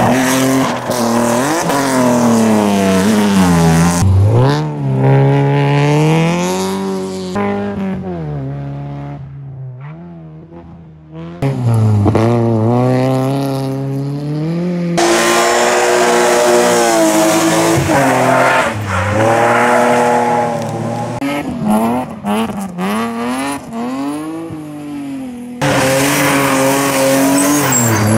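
BMW E36 3 Series race cars drifting through a hairpin one after another: engines revving hard up and down as the drivers work the throttle through the slide, with tyre squeal. One car fades away about eight to eleven seconds in before the next is heard.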